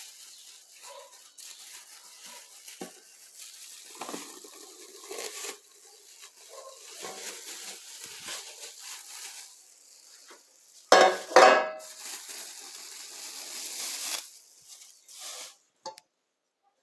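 Kitchen utensils working on the cake and its fillings: irregular scraping, stirring and rustling, with a short, much louder clatter about eleven seconds in.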